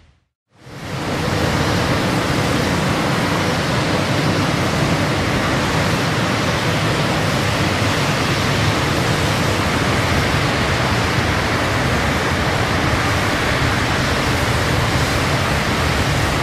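A steady, even rushing noise from a nature sound effect. It fades in about half a second in, holds level, and fades out at the end.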